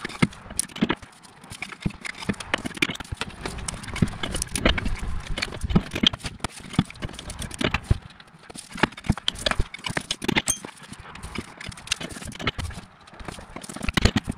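Hand tools on metal: a ratchet and socket clicking, with irregular knocks and clanks, as the inner CV joint's flange bolts are done up and torqued.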